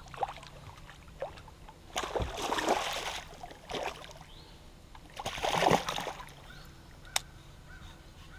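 Hooked bass thrashing and splashing at the surface beside the boat in two bursts, about two seconds in and again near six seconds, over a low steady hum. A sharp click comes about seven seconds in.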